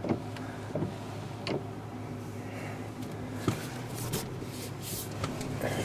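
Chevrolet Silverado 1500 pickup's engine idling steadily, heard from inside the closed cab, with a few faint clicks and taps from the cab.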